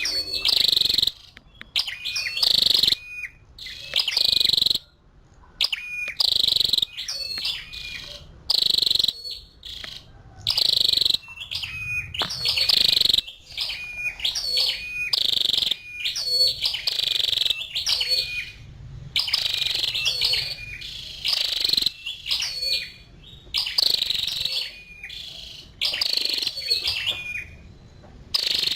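Female flowerpecker calling: short bursts of sharp, high chirps, repeated about once a second.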